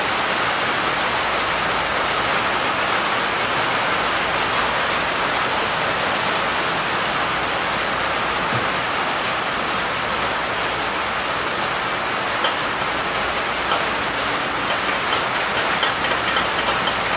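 Steady hiss of heavy rain, with a few faint ticks near the end.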